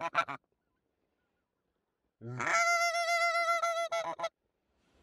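Hand-blown goose call (manok) sounding long drawn-out notes. The tail of one note is heard at the very start, then about two seconds in a single call starts low, jumps up to a high, steady note and holds for about two seconds before stopping.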